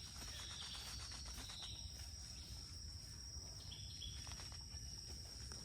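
Jungle insects keeping up one steady high-pitched drone, with a faint low rumble underneath.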